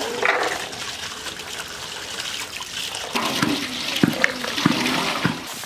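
Handfuls of wet lotus seeds scooped out of water and dropped into a metal bowl: water trickles and splashes off the hands, and the seeds land with several sharp clattering knocks in the second half.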